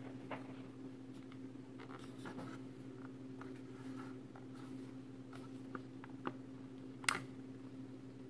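Stock round air filter element of a Harley-Davidson Iron 883 being worked off its air cleaner backplate by hand: light scraping and rustling with scattered small clicks and one sharper click about seven seconds in, over a steady low hum.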